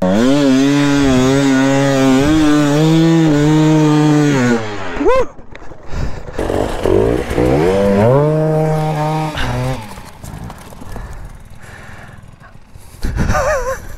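Dirt bike engine revving hard and held high for several seconds, then dropping off with a quick blip of the throttle. It revs up again for about three seconds before falling away, leaving a quieter rustling stretch near the end.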